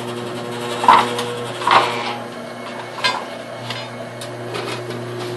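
Clunks and scrapes of steel parts on a drum-built roaster being handled: three sharp ones about one, two and three seconds in, and a few lighter ticks afterwards. A steady mechanical hum runs underneath.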